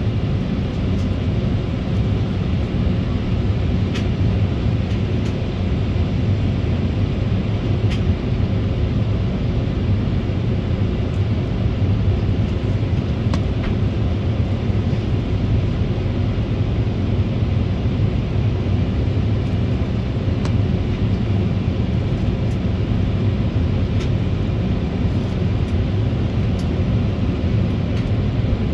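Cabin noise inside an Embraer 190 airliner at taxi: a steady low rumble from its CF34 turbofan engines at low thrust, with a few faint clicks.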